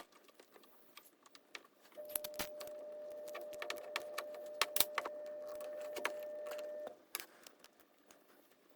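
Small metal clicks and clinks of carburetor parts and hand tools as a fast idle solenoid is fitted to a Holley two-barrel carburetor. A steady hum sounds underneath from about two seconds in and stops abruptly near seven seconds.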